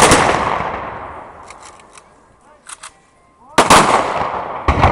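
Rifle salute volleys from an honour guard: a ragged volley of several near-simultaneous shots right at the start that rolls off in a long echo over about two seconds, then another volley about three and a half seconds in, with a further crack just before the end.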